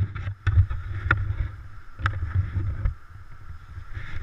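Low rumble of wind and movement on a body-worn GoPro, with a few sharp clicks about a second apart.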